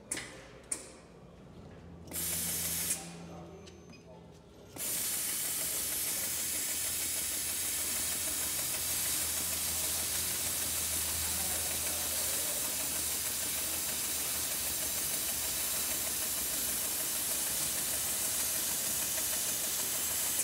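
Roll cutter machine running its circular blade on a roll of bitumen roofing membrane. Two clicks at the start, a short burst of hiss about two seconds in, then from about five seconds a steady, loud hiss over a low motor hum.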